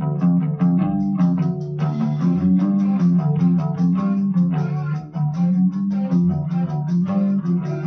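A rock band playing: electric guitar picking quick, evenly spaced notes over a bass guitar line, played loud through amplifiers.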